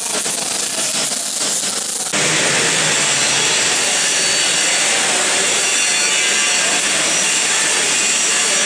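Electric arc welding: a crackling, spattering arc that changes abruptly about two seconds in to a steady, dense hiss.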